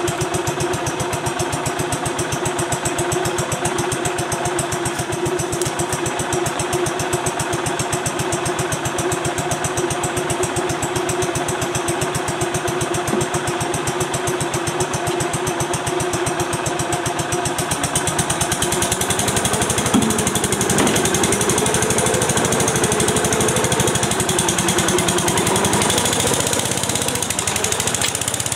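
Kohler 16 HP engine in a Bobcat 610 skid steer running steadily. About eighteen seconds in its note rises and grows slightly louder, with a single sharp click a couple of seconds later.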